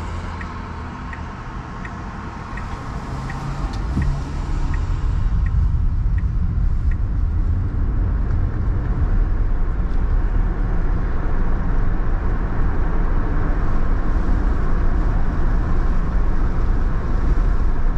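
Car road and engine noise heard inside the cabin. It grows louder about four seconds in as the car picks up speed onto the highway. For the first seven seconds it carries the even ticking of a turn signal, about three clicks every two seconds.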